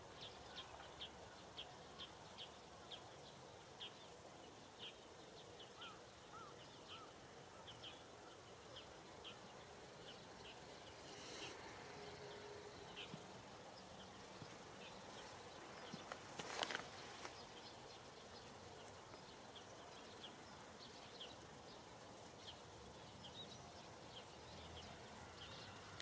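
Faint chirping of crickets: short, high pips a few times a second that thin out after about ten seconds, over quiet background noise. A single brief, louder sound about sixteen seconds in.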